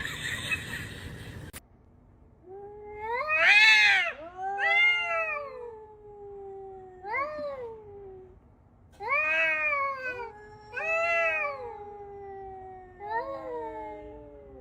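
A cat meowing loudly and repeatedly: about six long, drawn-out meows, each rising then falling in pitch, with lower moaning tones drawn out between them. A short burst of noise at the start cuts off sharply before the meowing begins.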